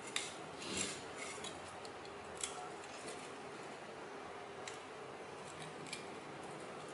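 Thin aluminium strips cut from a drink can being handled and bent by hand: faint crinkling and a few light metallic clicks, with a short rustle about a second in.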